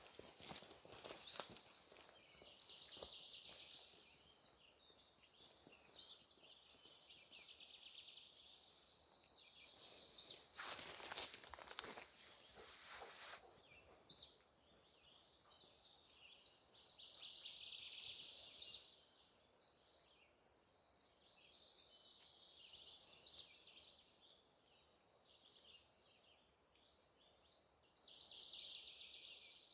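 Birdsong: a songbird singing short loud phrases about every four or five seconds, each with a quick run of repeated high notes, over steady high chirping from other birds. About ten seconds in, a few seconds of clicking noise cut across the song.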